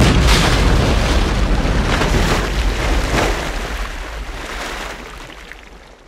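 A large water splash sound effect. It comes in suddenly and loud with a deep boom, then rushing spray that surges a few times and fades away over about six seconds.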